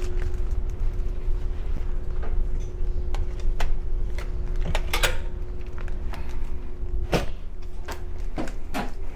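Steady low rumble of a ferry under way, with a faint steady hum that stops about 7 s in. Scattered light clicks and knocks of handling, the clearest about 5 s and 7 s in.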